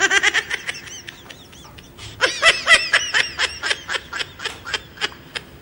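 Laughter sound effect: rapid, high-pitched 'ha-ha-ha' laughing in two runs, with a lull of about a second near the start.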